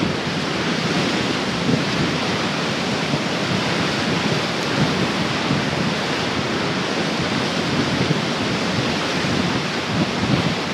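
Strong tropical-storm wind blowing steadily through trees and palms, an even unbroken noise at a constant level.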